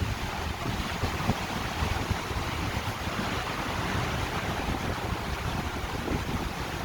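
Wind buffeting the microphone, over a steady rush of wind and sea on a cruise ship's open deck.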